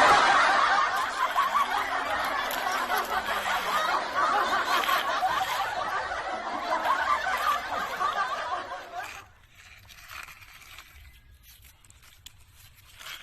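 A crowd of people laughing together, many voices at once, for about nine seconds before dying away to faint sound.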